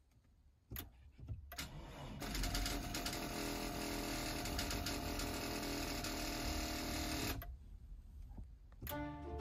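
A car's starter motor cranking for about five seconds without the engine catching, then cutting off sharply. It comes after two short clicks. The car fails to start.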